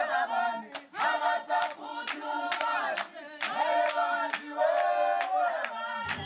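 Background music: a choir singing in short chant-like phrases over a steady percussion beat.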